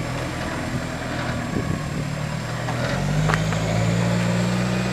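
Four-wheel-drive ute engine pulling steadily at low revs while crawling up a rutted dirt track. About three seconds in the revs rise slightly and the engine gets a little louder, and a single knock follows soon after.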